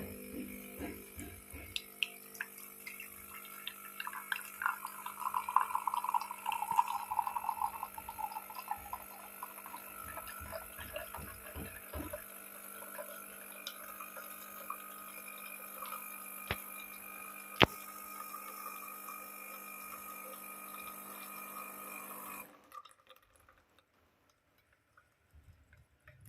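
De'Longhi Eletta Cappuccino Top bean-to-cup machine's pump humming steadily as coffee pours and drips into the cup, with scattered small clicks and one sharp click about seventeen seconds in. The hum stops abruptly about 22 seconds in.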